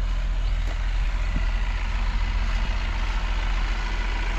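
Car engine running at a steady idle close by, a constant low hum.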